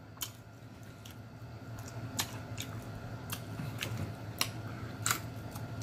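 Close-miked chewing of fried food: irregular crisp clicks and wet mouth smacks, over a faint low hum.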